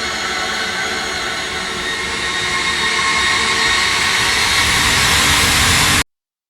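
Suspense riser sound effect: a dense rushing roar threaded with faint sustained tones that swells steadily louder, then cuts off abruptly about six seconds in.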